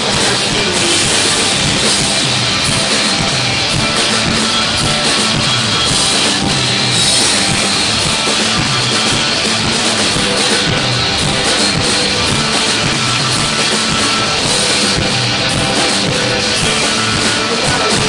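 Live rock band playing loudly: electric guitar strummed over a full drum kit, with no singing.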